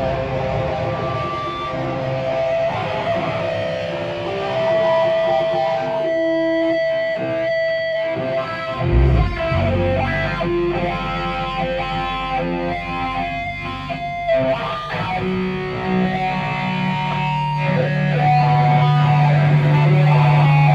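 Live rock band playing: electric guitar notes ringing over bass, with a low thud about nine seconds in and a held low bass note swelling louder near the end.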